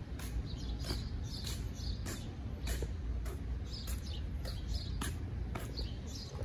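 Footsteps on pavement at a walking pace of about two a second, with a low rumble of wind on the microphone.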